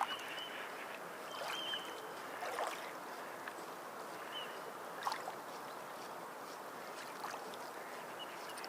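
Sea water lapping and washing steadily, with a few short, sharp splashes about every one to two seconds and several brief high squeaks.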